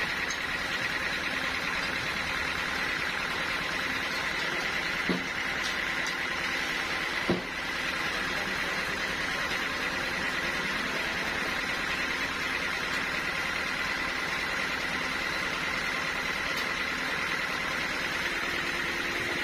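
Sawmill machinery running steadily with a constant high whine, and two sharp knocks about five and seven seconds in.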